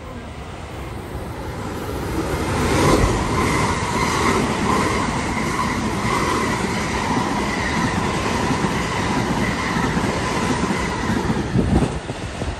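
Electric commuter train passing a station platform at speed. The rumble grows as it approaches and is loudest about three seconds in, then holds as a steady rush of wheels on rails with a steady high whine, easing slightly near the end.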